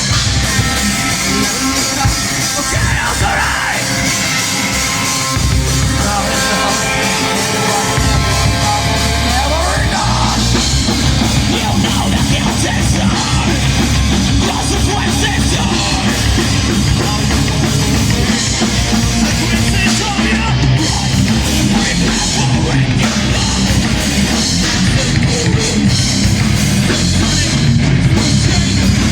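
Heavy metal band playing live: distorted guitars and a drum kit at full volume, with a pitched guitar line sliding up and down during the first ten seconds.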